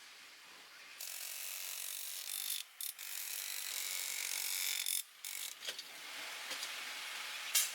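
Steady, hissy mechanical workshop noise, broken by short dropouts about two and a half and five seconds in, with a brief sharper sound near the end.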